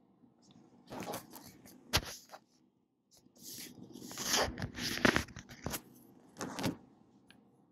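Things being handled on a desk: a run of scrapes, rustles and clicks as a phone is picked up and handled, with a sharp knock about two seconds in.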